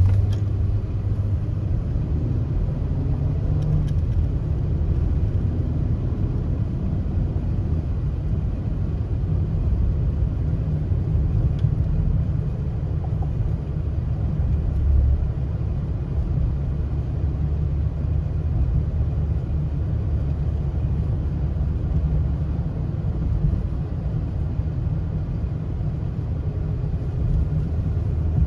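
A car driving along: a steady low rumble of road and engine noise that stays even throughout.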